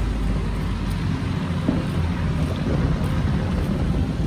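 Large truck's engine idling: a steady low rumble.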